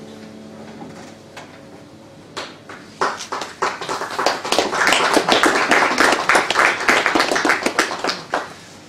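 The last piano chord dies away, then a small audience applauds: a few scattered claps about two seconds in, building to full clapping and fading out near the end.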